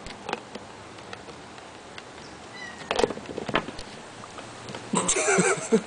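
A domestic cat meowing once near the end, a wavering call that is the loudest sound here, after a few faint scattered clicks and light taps.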